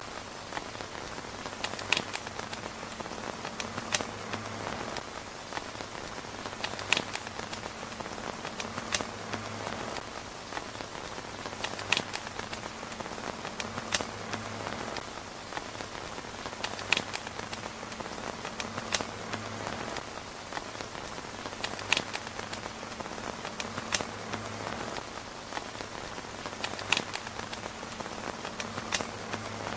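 Steady rain pattering on a tent roof, with a sharp click about every two to three seconds.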